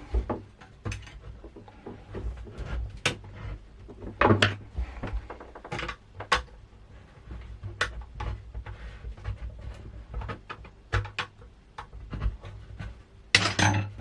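Irregular clicks, cracks and clatter of a brittle plastic LCD monitor casing being pried apart and broken off its metal frame by hand.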